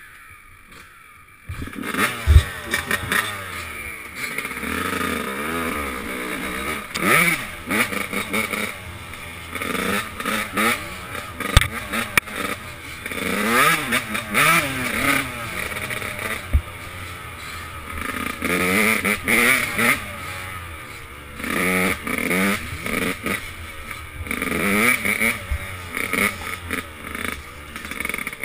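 Dirt bike engine revving up and falling back again and again as it is ridden, starting about a second and a half in. A few sharp knocks cut through the engine note.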